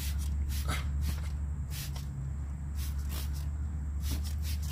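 Hand trigger spray bottle being squeezed again and again, a series of short spray hisses, often two in quick succession, as undercarriage dressing is misted onto a plastic wheel-well liner. A steady low hum runs underneath.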